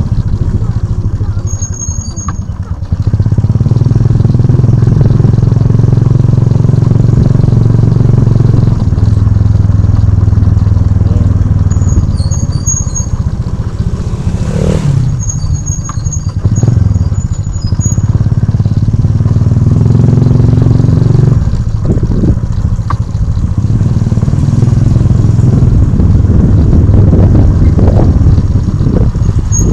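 Motorcycle engine running steadily while riding along, its note dipping and picking up again a few times, with a brief falling sweep about halfway through.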